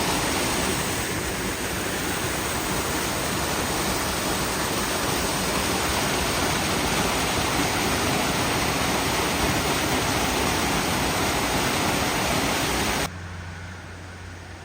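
Waterfall rushing, a loud steady roar of falling water; near the end it cuts off suddenly, leaving a quieter low hum.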